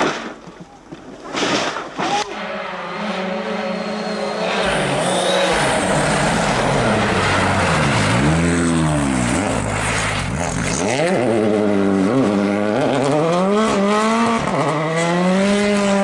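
Rally car engine driven hard: after a short quieter moment at the start, it runs loud, dips and swells in pitch, then accelerates in several rising runs broken by gear changes, and settles to a steady high note near the end.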